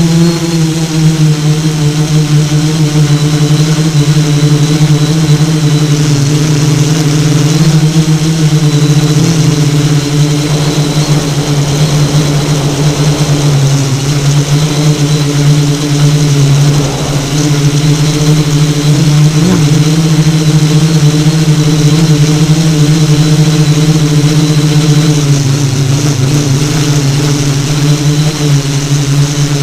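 FPV multirotor drone's electric motors and propellers buzzing steadily, the pitch dipping and rising slightly a few times as the throttle changes.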